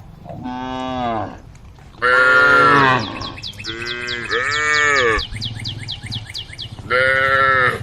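Cows mooing, four separate drawn-out calls that rise and fall in pitch. A fast, high chirping runs under the middle calls.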